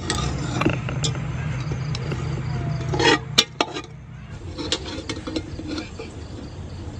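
Metal ladle clinking and scraping against an aluminium cooking pot while lifting out pieces of steamed chicken, with a quick run of sharp clinks about three seconds in.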